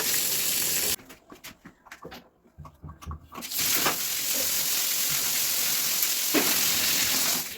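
Water hissing from a hose's hand spray gun. The spray is shut off about a second in, leaving a few clicks and knocks, then comes on again at about three and a half seconds and runs until it is cut off near the end.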